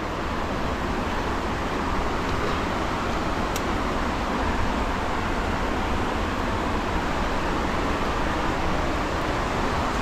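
Steady rush of river rapids tumbling over boulders.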